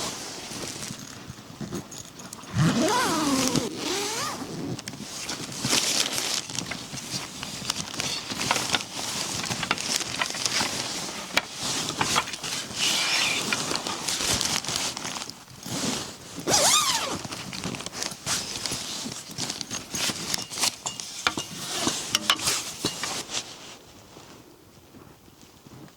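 Close handling noises: rustling and many sharp clicks, with a squeaky scrape early on and another about two-thirds of the way through, dying down near the end.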